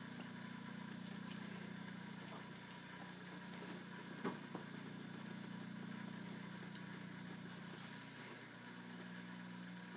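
A steady low hum, with two short sharp clicks about four seconds in.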